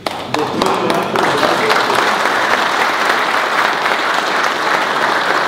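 Hall full of seated people applauding: a few scattered claps at first, swelling into steady applause about a second in.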